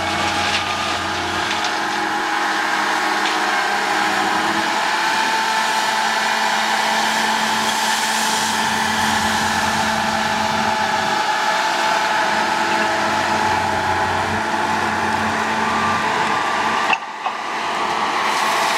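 Liebherr HS882 crawler dragline's diesel engine running steadily under load while the machine hoists and slews its drag bucket, a steady mechanical drone with several held tones. A brief break in the sound near the end, after which heavy excavator engine noise carries on.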